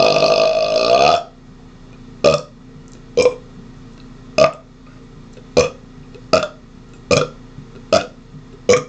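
A man burping: one long, loud, pitched burp lasting about a second, followed by a string of eight short burps about one a second.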